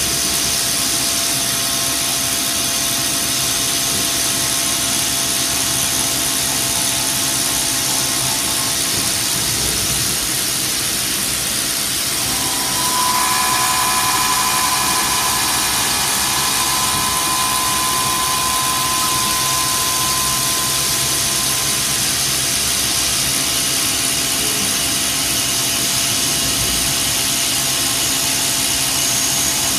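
CNC milling machine spindle running and its end mill cutting linen phenolic: a steady machine whine over a dense hiss. About halfway through, a higher cutting tone sets in and the sound gets a little louder for several seconds before easing back.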